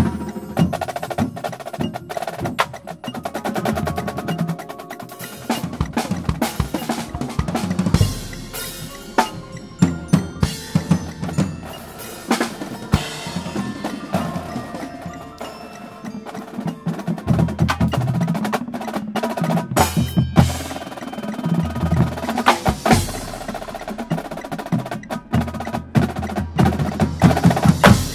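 Marching drumline of Pearl snare drums, tenor drums and bass drums playing a loud, fast show passage together, full of rapid rolls and accented hits.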